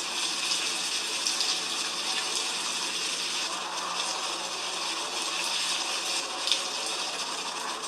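Heavy rain falling: a steady hiss with fine ticking of drops, and one louder tick about six and a half seconds in.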